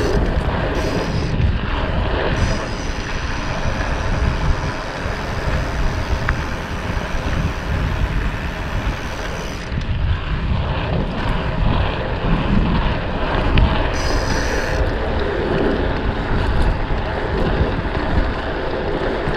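Wind buffeting the camera microphone during a bicycle ride, a steady rough rumble. A fainter high hiss comes in and drops out a few times.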